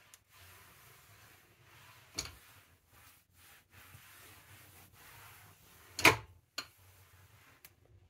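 Cloth wiping a glossy countertop, a faint rubbing in strokes. A sharp knock comes about two seconds in, and a louder one about six seconds in, followed by a couple of lighter clicks.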